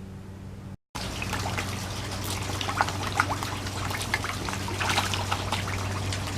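Water trickling and splashing in a fish pond, with scattered small splashes over a steady low hum. The sound cuts out briefly about a second in.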